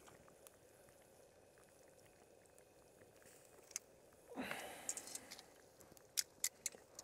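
Noodles being lifted with metal tongs from a pot over a wood fire into a bowl. Mostly faint, with a short rushing noise just past halfway and a few sharp clicks near the end.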